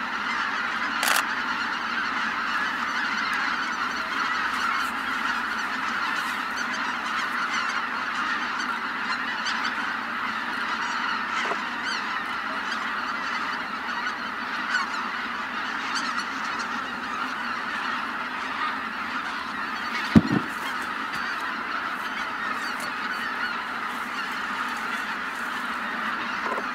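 A large flock of greater white-fronted geese calling continuously, a dense massed chorus of honking and yelping as the birds fly in to their evening roost. A single short low thump about twenty seconds in.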